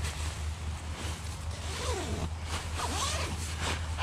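Sleeping bag rustling and rasping as a person pulls it up around himself and wriggles down into it, with a few squeaky rubbing sounds in the middle.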